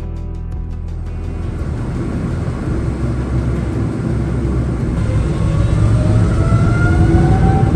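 Boeing 777 jet engines heard from inside the cabin. Their noise builds steadily, and from about five seconds in a rising whine glides upward as thrust is applied, typical of the spool-up for the take-off roll.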